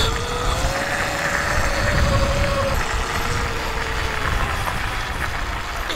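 72V Sur Ron electric dirt bike riding along a dirt trail: a thin motor whine that rises slightly and then fades about halfway through, over a steady rumble of tyres and wind.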